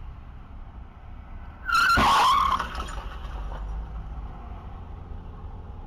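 Tyres screeching briefly about two seconds in, with a sharp knock as it begins, over the steady low road rumble heard from inside a car in traffic.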